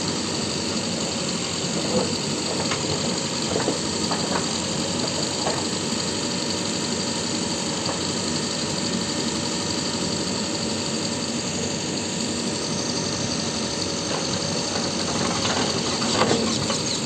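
JCB digger's diesel engine running steadily, with a few short knocks.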